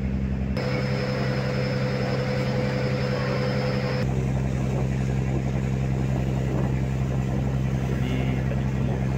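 Boat engine running with a steady low drone, heard from on board the small wooden motorboat. A steady whine joins from about half a second to four seconds in.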